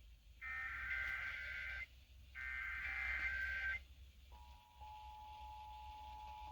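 Emergency Alert System SAME header: the last two of its three bursts of warbling data tones, each about a second and a half long. About four seconds in, the EAS two-tone attention signal comes on and holds steady, its higher tone starting a moment before the lower. Together they herald a required monthly test.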